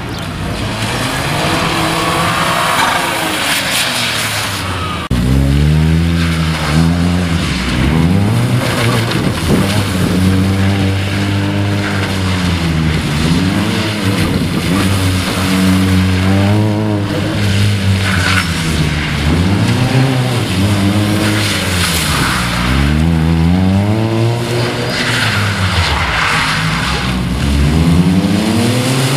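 Car engine and tyre noise on wet tarmac, then, from about five seconds in, a small hatchback's petrol engine revving hard, its pitch climbing and dropping over and over as it is driven flat out around cones in a motorkhana test.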